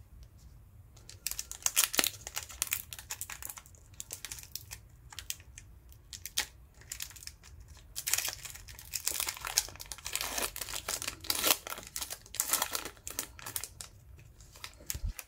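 Metallic foil trading-card pack crinkling and being torn open by hand, in irregular crackly bursts from about a second in, with the wrapper rustling as the cards are slid out.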